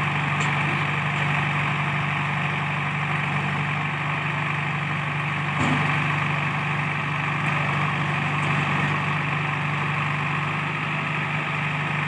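Heavy diesel engine of the backhoe loader or tractor running steadily at a low, even speed, with one short knock a little before halfway through.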